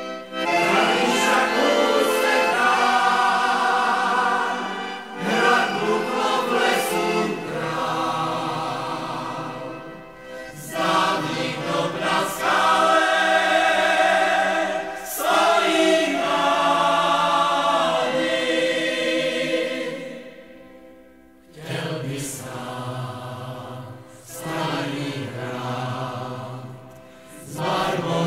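Moravian folk song sung by a group of voices in harmony, phrase by phrase, with short breaks between phrases about ten seconds in, around twenty seconds in and near the end.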